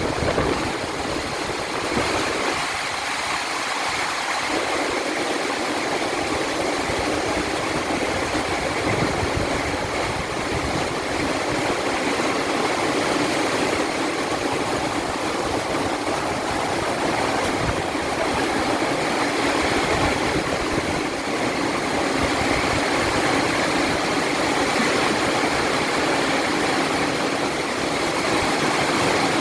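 Heavy storm rain pouring down in a steady, even hiss.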